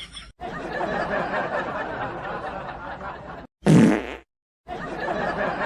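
A loud wet fart sound, about half a second long, a little past halfway through, set apart by brief dead silence on either side. Busy background chatter fills the rest.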